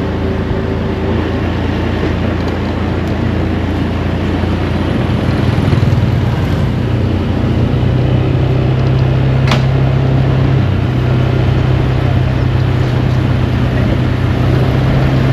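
Rented motor scooter's small engine running while being ridden, with a steady rushing noise; about six seconds in the engine note rises and gets louder as it speeds up, then holds steady.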